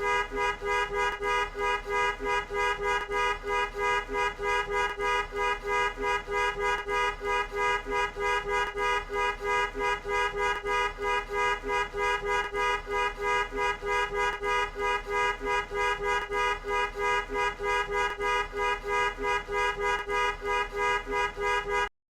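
Car horn honked in short, rapid beeps, about three a second without a break, each beep sounding two horn notes together. The honking stops abruptly near the end.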